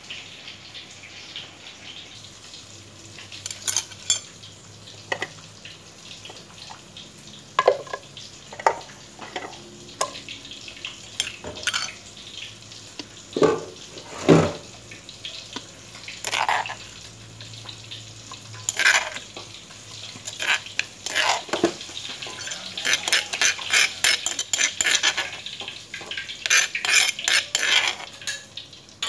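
Kitchen utensils knocking and scraping against a stone mortar and a metal pot: scattered knocks and clinks, then a quick run of taps over the last several seconds.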